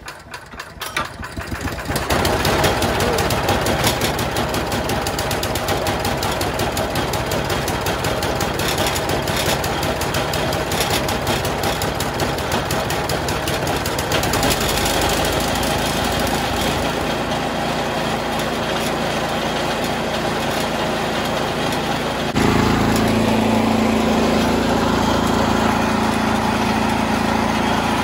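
Four-stroke gas engine of a Toro Power Max HD 828 two-stage snow blower, pull-started cold on choke after priming. It catches on the first pull within about two seconds, then runs steadily at full throttle. About 22 seconds in the note shifts abruptly and gets a little louder.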